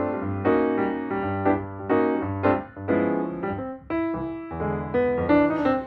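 Background music: keyboard playing a run of chords with separate notes striking about every half second, over a low bass line.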